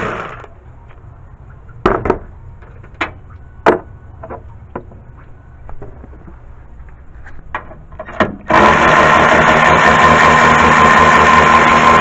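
Cordless electric ratchet backing out the 13 mm radiator support bolts. Its motor cuts off at the start, and a few sharp clicks and knocks follow as the socket is moved to the next bolt. The motor then runs steadily again for about three and a half seconds from about eight and a half seconds in.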